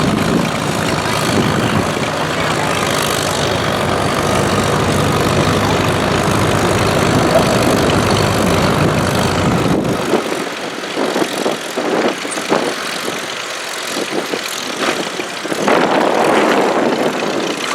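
Old tractor engine working hard under load as it pulls a weighted box in a tractor pull. About ten seconds in, the heavy low engine sound cuts off abruptly, leaving lighter, uneven sounds.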